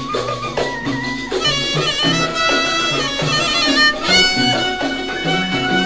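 Tunisian traditional music played by an ensemble: a winding melody over a repeating low bass figure.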